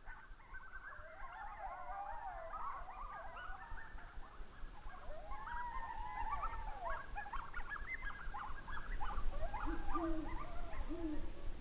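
A chorus of wild canines yipping and howling, many wavering calls overlapping one another, with quick yips in the middle. Near the end an owl hoots twice, low.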